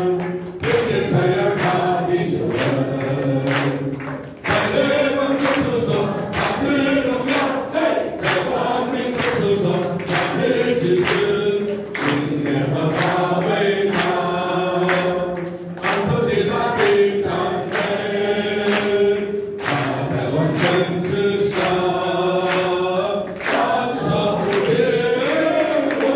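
A group singing a song together, with men's voices through microphones and a steady beat underneath.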